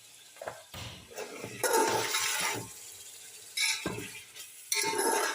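Metal spoon stirring spiced chicken and potatoes in a kadhai, scraping and clinking against the pan in three or four strokes.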